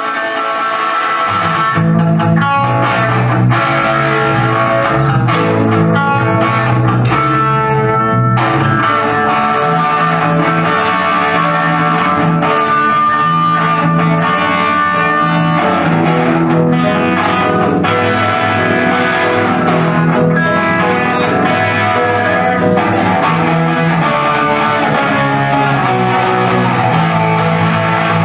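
Live band playing an instrumental intro led by electric guitar, with keyboards, and a low bass part coming in about a second and a half in.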